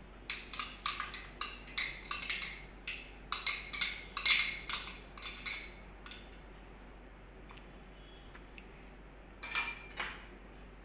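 Metal spoon clinking against a cut-glass bowl while curd is worked in it: quick, irregular clinks for about five seconds, a pause, then a few more clinks near the end.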